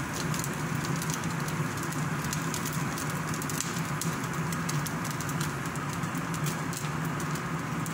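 Shredded chicken frying in a stainless steel pan, a steady sizzle full of fine crackles as a silicone spatula stirs it, over a steady low hum.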